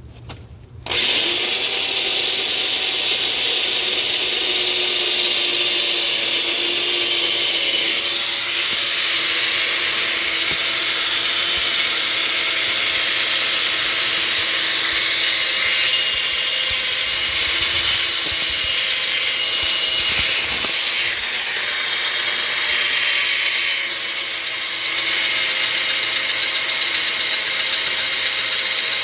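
Electric drill boring into a broken hard-steel stud, starting about a second in and running steadily under load, with a brief drop in level a little after 23 seconds.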